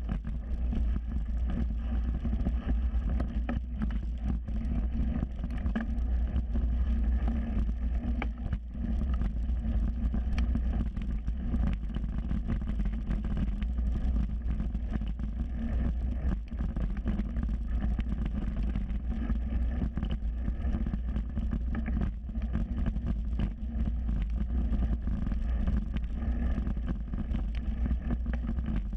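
Mountain bike ridden fast over a dirt singletrack, heard from a camera on the bike: a steady low rumble of wind on the microphone and tyres on dirt, with frequent rattles and knocks as the bike goes over bumps.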